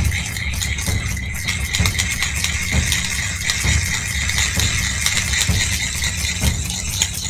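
Mini USB hand-crank dynamo generator cranked continuously by hand, its small gears and dynamo whirring with a steady thin whine, while it charges a cell phone.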